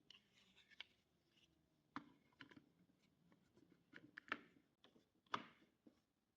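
Scattered light clicks and knocks from small parts being handled, the loudest about four and five seconds in.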